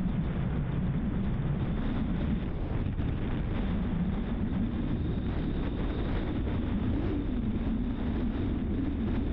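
Car driving steadily at road speed: a continuous low rumble of engine and tyre noise with a slowly wavering hum.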